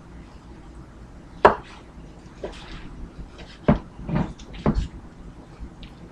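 Kitchen knife knocking on a cutting board while slicing cooked chicken breast: a handful of short, sharp knocks at irregular intervals, the first the loudest.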